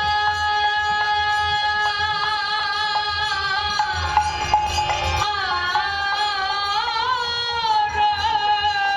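Bengali devotional kirtan music: a long note is held steady, then a singing voice wavers and bends in pitch from about five seconds in, over a low drum beat.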